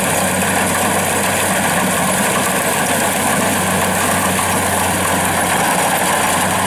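Kubota crawler combine harvester running steadily under load as it cuts lodged, flattened rice: a continuous engine and machinery drone with an even hum underneath.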